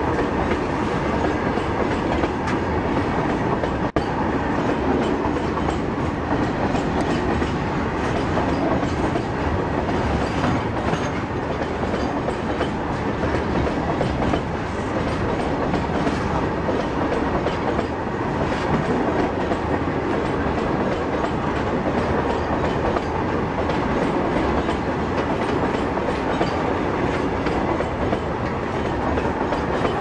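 A long freight train of open goods wagons rolling past close by: a steady noise of steel wheels running on the rails, without a break.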